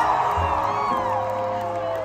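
Live band holding a sustained chord while a crowd cheers and whoops, the cheering dying down.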